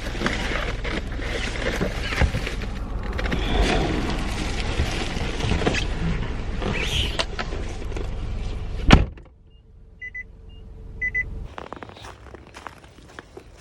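Loud rumble and rustling as someone climbs out of a car, then a car door slams shut about nine seconds in. After the slam it goes much quieter, with a few short high beeps.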